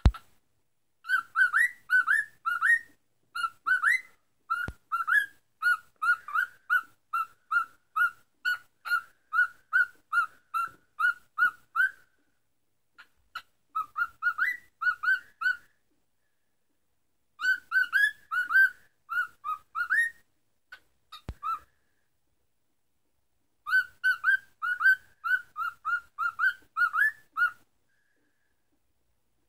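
Cockatiel singing: four phrases of short, quick whistled notes, some rising chirps and some flat, about two or three notes a second, with silent pauses between phrases.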